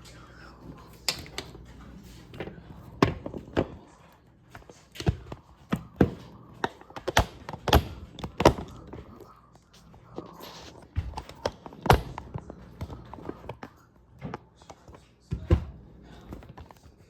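Irregular clicks, taps and knocks of a hard plastic MacBook case being handled and set down on a surface during cleaning, a dozen or more sharp strikes with uneven gaps.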